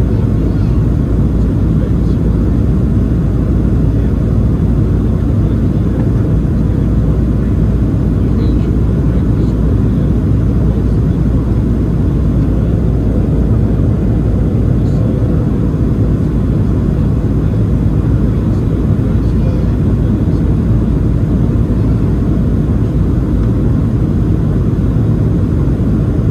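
Cabin noise inside a Boeing 737-700 during the approach: the steady low roar of its CFM56-7B engines and the air rushing over the fuselage, unchanging throughout.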